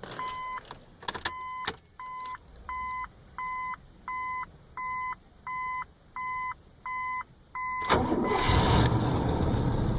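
1981 Buick Electra Limited's dashboard warning chime, one long tone and then evenly repeated beeps about every 0.7 s, with a few clicks from the ignition key. About eight seconds in the engine cranks and catches and runs, without the belt squeak it sometimes makes at startup.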